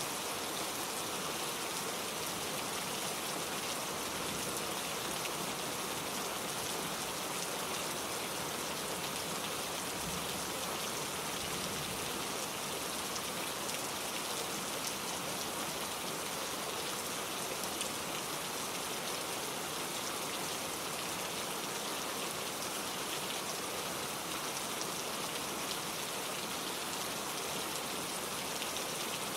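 Steady rain falling on foliage: a dense, even hiss of raindrops.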